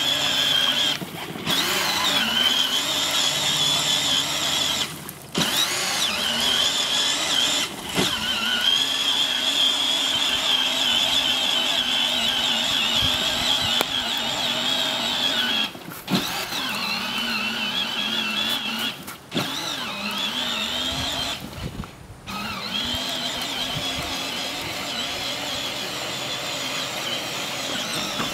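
Battery-powered Barbie Jeep ride-on toy's electric drive motors and gearboxes whining steadily as it drives over grass, the pitch wavering with the load. The whine cuts out for a moment several times as the pedal is let off, then picks up again.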